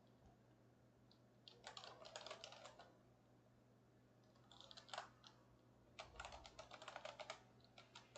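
Faint computer keyboard typing in three short flurries of keystrokes.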